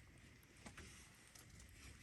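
Near silence: faint outdoor ambience with a low rumble and a couple of soft ticks.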